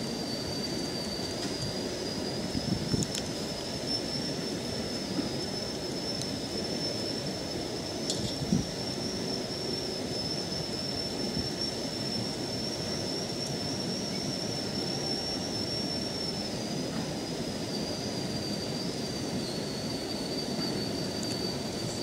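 Automatic trash-rake screen cleaner at a river intake running as its comb rake travels along the debris-laden screen: a steady rumbling noise with a continuous, slightly wavering high whine, and a few short knocks about three and eight seconds in.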